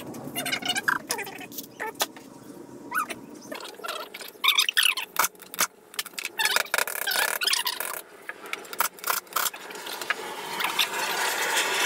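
Hand work with a tool and a rag on a Sprite's exposed A-series cylinder head: scattered clicks and knocks of metal on metal, with squeaks.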